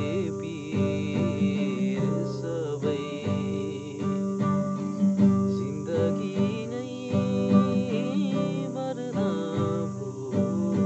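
Nylon-string classical guitar strummed in steady chords, with a man's voice singing along.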